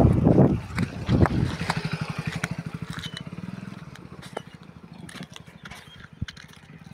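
A motorcycle passing close by and riding away on a dirt track, its engine loud at first and then fading steadily as it moves off.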